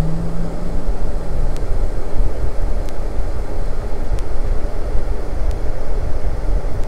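Steady low rumbling noise, its loudness wavering unevenly, with faint sharp ticks about every second and a quarter.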